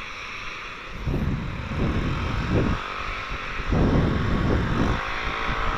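Wind buffeting the microphone in irregular gusts over the steady running of a Yamaha NVX scooter's engine while riding on the road.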